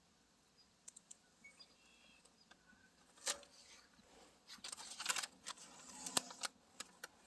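Masking tape being peeled off a truck's painted body after a coat of truck bed coating, giving short, irregular crackling rips that come more often and louder in the second half.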